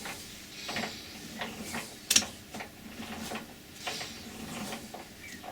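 Irregular mechanical clicks and knocks, with one sharp click about two seconds in.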